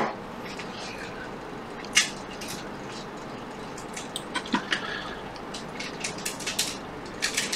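Light clicks and taps of small parts and tools being handled at a repair bench. There is a sharp click at the start and another about two seconds in, then a scatter of quick small clicks in the second half.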